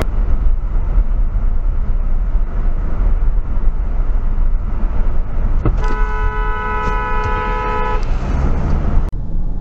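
Car horn held for about two seconds, two notes sounding together, over the steady rumble of road and engine noise inside a moving car.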